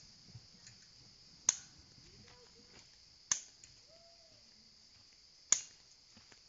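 Three sharp clicks, roughly two seconds apart, of snippers cutting zip ties on a wire-panel dog trap, over a steady chorus of crickets.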